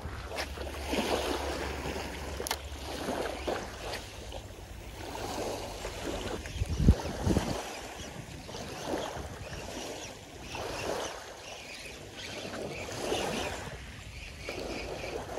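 Small waves washing in on a shallow sandy beach, each wash swelling and fading about every two seconds, with wind rumbling on the microphone for the first few seconds. A single sharp low thump comes about seven seconds in.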